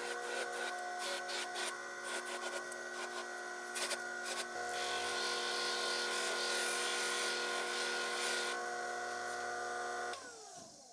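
Hobby bench grinder's electric motor running steadily with a cotton buffing wheel while a gold-filled watch case is buffed with brown polishing compound; for several seconds in the middle a louder rushing scrape of the piece against the wheel. Near the end the motor is switched off and its pitch falls as it spins down.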